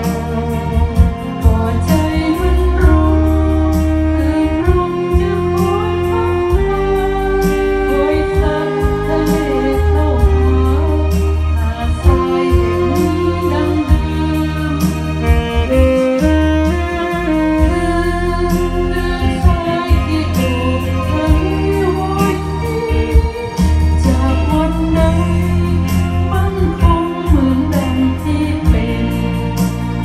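A small jazz-style band playing a slow tune: sustained bass notes, cymbal and drum strokes, and a lead melody line with vibrato over chord changes.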